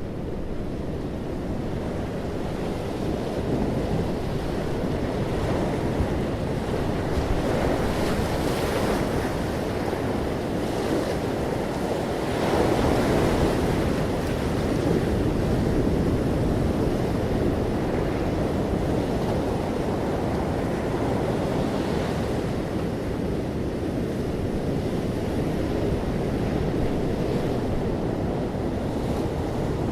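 Sea waves breaking gently on the shore, a continuous wash of surf that swells briefly around 8 seconds in and again a little past the middle.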